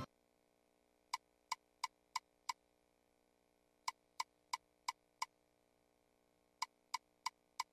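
Short electronic blips from a slot game machine, in three groups of four or five at about three a second, with pauses between the groups.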